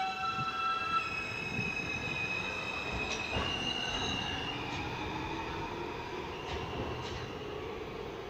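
An R160A subway train pulling out and accelerating away. Its traction motors and inverters give a whine of several tones that step up in pitch over the first few seconds, over a rumble of wheels on rail. A few sharp clacks come from the wheels passing over rail joints as it goes.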